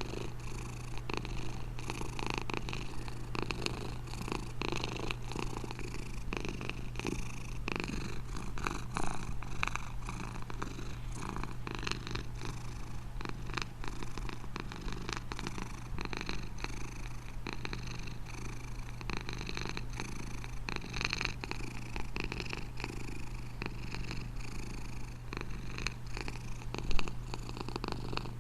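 Domestic cat purring steadily and continuously, a low rhythmic rumble. Near the end there is one brief sharp knock, the loudest moment.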